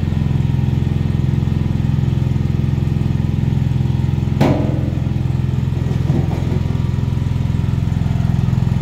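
Kingtech A33HR coconut grating machine running steadily, its stainless-steel grater drum spinning and shredding coconut, with a low, even drone. About halfway through there is a sharp knock, and a lighter one a moment later.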